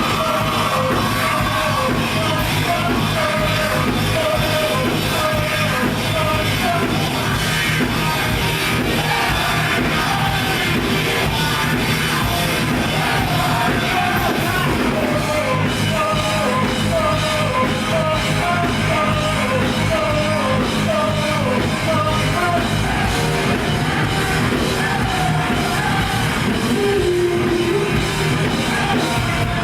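Rock band playing live, with a singer over a steady loud beat.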